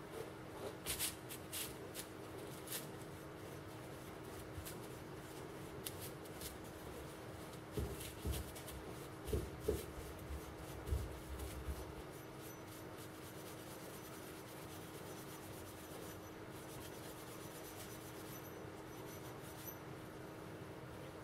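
Steel wool rubbing and scratching on a small metal mortar part, in short irregular strokes, with a few light knocks of the part being handled about halfway through. A steady low hum sits underneath.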